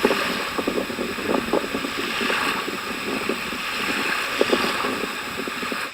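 Steady wind on the microphone over the sea, with scattered faint knocks.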